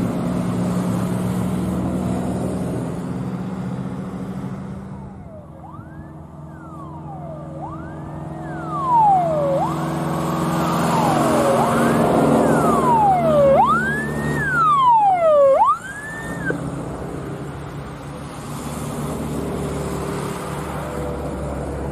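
Vehicle siren wailing, its pitch sweeping up quickly and sliding back down more slowly about every two seconds, for roughly ten seconds before cutting off abruptly. A motor vehicle's engine runs underneath.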